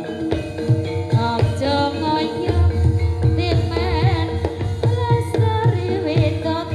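Javanese gamelan music with a singer's voice in wide vibrato, over sustained metallophone notes and regular kendang drum strokes.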